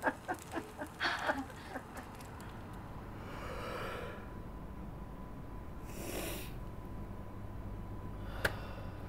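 A man breathing out heavily in two long sighs, about three and six seconds in, after a few short rhythmic sounds at the start; a sharp click near the end.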